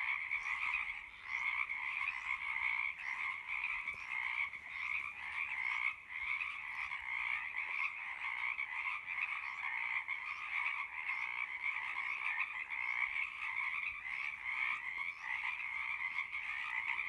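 A chorus of Pacific chorus frogs (Pacific treefrogs), many overlapping ribbit calls running together into a dense, unbroken din.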